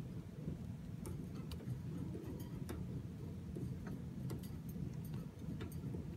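Faint, irregular light clicks and ticks over a steady low rumble.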